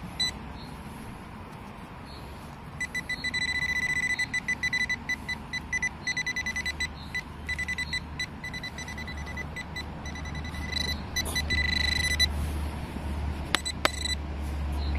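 Metal detecting pinpointer probe sounding its high-pitched alert, beeping in a rapid pulse for several seconds and then a few short beeps as it is worked through the loose soil of a dug hole, signalling metal close to its tip.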